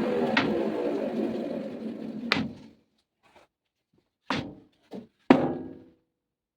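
Saw motor winding down, its hum sinking slightly in pitch and dying away about two and a half seconds in, followed by four sharp knocks, the last the loudest.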